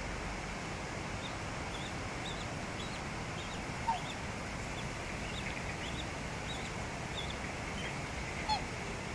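Black swan cygnets peeping with many small high chirps over the steady rush of brook water, with two short, louder waterfowl calls, about four seconds in and again near the end.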